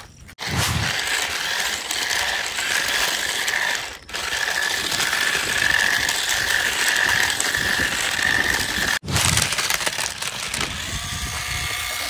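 Small battery toy remote-control car running: its little electric motor and gear train give a steady buzzing whir with gear rattle, with a high whine held through the middle. It breaks off for an instant three times.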